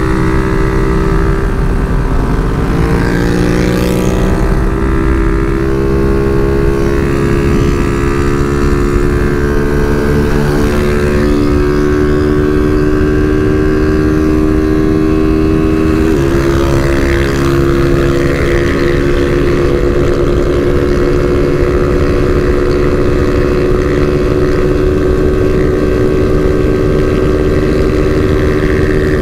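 Honda CG 160 Fan's single-cylinder engine running hard at highway speed, with wind buffeting the microphone. The engine pitch climbs over the first few seconds, jumps abruptly about halfway through, then holds steady.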